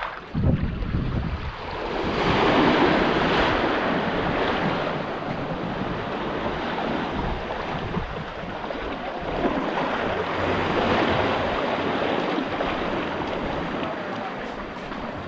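Small sea waves washing in and breaking against rocks at the water's edge, swelling about two seconds in and again around ten seconds. Wind rumbles on the microphone near the start.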